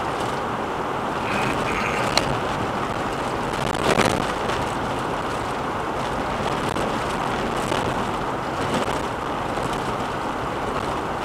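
Steady tyre and road noise heard inside a car driving at about 84 km/h on a rough, patched asphalt road, with a sharp knock about two seconds in and a louder thump about four seconds in as the car jolts over the broken surface.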